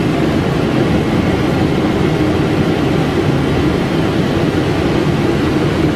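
Steady flight-deck noise inside a Boeing 777 cockpit: a constant rush of air and engine noise that holds even throughout.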